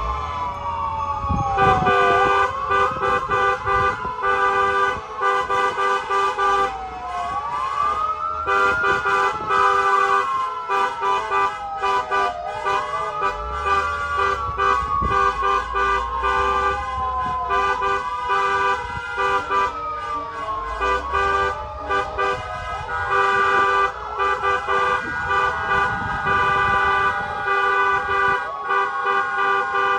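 Fire truck siren wailing, its pitch rising and falling about every five seconds, over a convoy of cars honking their horns, some in long blasts and some in rapid repeated beeps.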